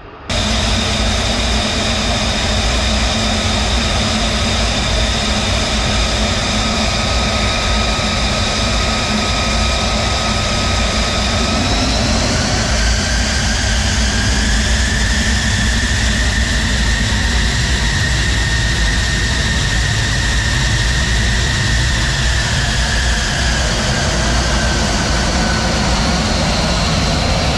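An F-35 Lightning II's single F135 turbofan is running close by as the jet taxis. It makes a loud steady rush with high whining tones, and about halfway through the whine shifts up in pitch and holds there.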